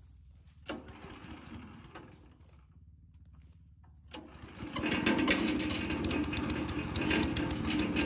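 Petrol-engined wood chipper running faintly at low speed, then, about four seconds in, rising over a second to a loud, steady drone as it comes up to full working speed.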